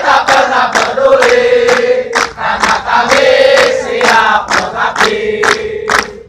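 A group of voices chanting in unison on long held notes, with sharp beats about three times a second.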